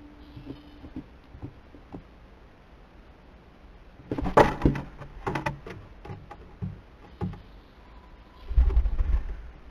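Barn owl knocking and scrabbling on the wood of its nest box as it leaves. A cluster of sharp knocks and scrapes comes about four seconds in, then scattered single knocks, and a low rumbling thump near the end.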